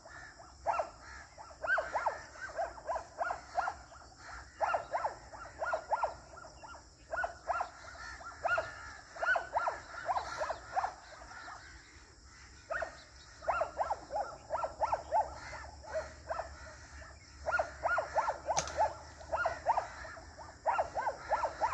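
Birds calling: quick bursts of short, repeated notes, four to eight in a run, recurring every second or two.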